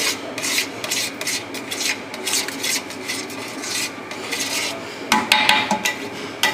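A metal spatula scrapes round the sides and bottom of a large aluminium pot of semolina halwa as it is stirred, in quick repeated strokes. A few louder strokes about five seconds in make the pot ring.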